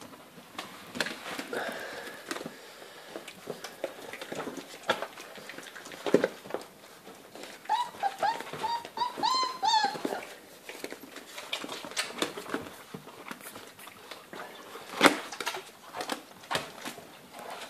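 Great Dane puppy whining: a quick run of short, high, rising-and-falling yelps lasting about two seconds in the middle. Scattered clicks and taps around it, one sharper tap near the end.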